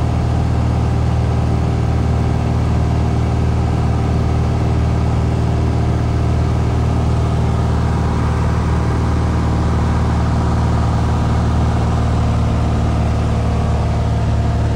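Single-engine light plane's engine and propeller running steadily at cruise, heard from inside the cabin as a constant, even hum.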